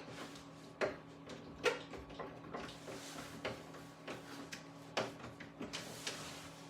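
Scattered sharp clicks and taps of hand tools and stiff wire being worked at an electrical panel, over a faint steady hum.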